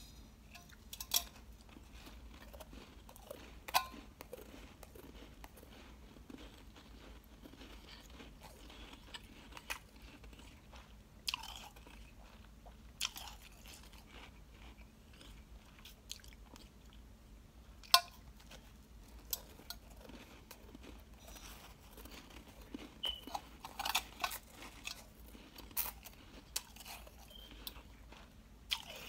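Person biting and chewing a block of soft, powdery ice: crisp crunches at irregular intervals between quieter chewing, the loudest bite a little past the middle.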